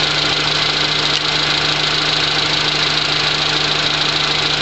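Car engine idling steadily under extra alternator load from an HHO electrolysis cell drawing about 38 amps, with the PWM current limiting bypassed by a jumper. A steady low hum with an even hiss over it.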